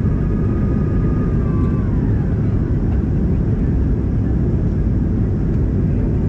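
Cabin noise inside a Boeing 737-200 from a seat over the wing: the steady low rush of its Pratt & Whitney JT8D turbofans and the airflow, with a high engine whine that drops in pitch and fades about two seconds in.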